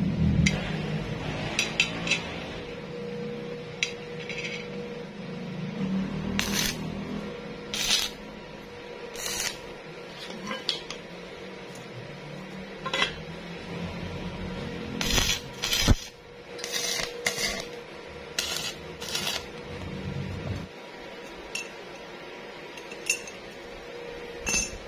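Steel parts of a homemade waste-oil burner being handled and fitted together: a scattered series of sharp metal clinks and knocks, thickest about two-thirds of the way through, with scraping between them.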